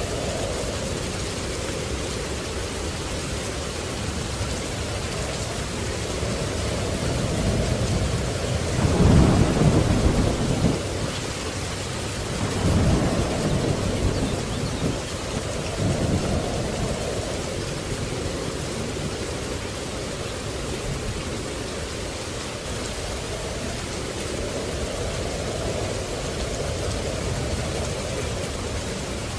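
Steady rain with thunder rolling through it: a loud low rumble about a third of the way in, followed by two smaller rolls a few seconds apart.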